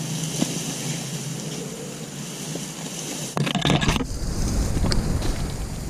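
A cut oil palm frond's leaflets rustling and scraping as it is dragged and lifted, with a loud crackling rustle about three and a half seconds in. After it comes a low rumble of wind on the microphone.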